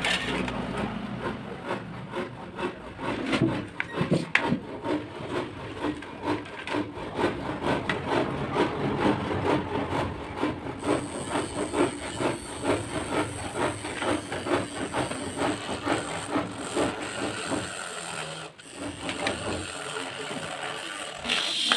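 Mini rotary tool grinding against a workpiece: dense, irregular scraping and rubbing, with a steady high whine joining about halfway through.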